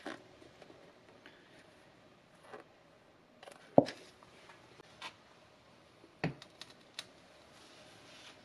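A cardboard baking soda box and a coconut-shell bowl being handled and set down on a tabletop: a few scattered taps and knocks, the loudest about four seconds in and another a little after six seconds.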